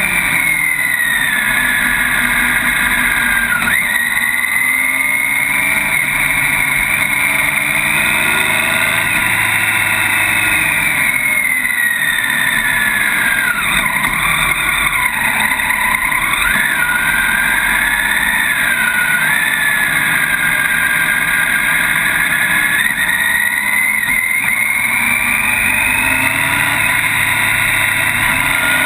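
Motorcycle engine running on a downhill ride. Its pitch slowly rises and falls with the throttle and dips sharply a few times, over steady wind and road noise.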